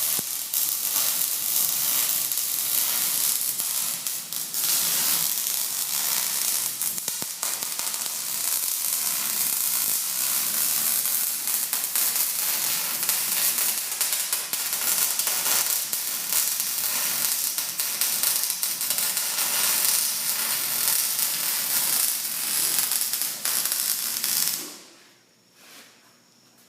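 Electric welding arc crackling and sizzling steadily as a bead is laid on a mild-steel bar, stopping abruptly about 25 seconds in.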